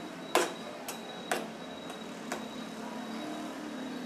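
Steel spatula clinking and scraping against a steel pan while stirring banana slices in simmering sugar syrup. There are about five sharp clinks in the first two and a half seconds over a steady hiss.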